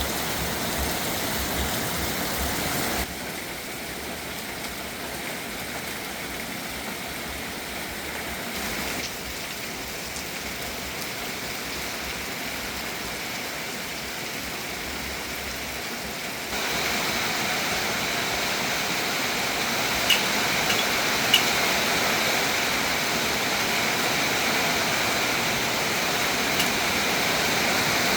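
Steady rain falling, an even hiss that changes level abruptly about three, nine and sixteen seconds in. A few sharp drips or taps come around twenty seconds in.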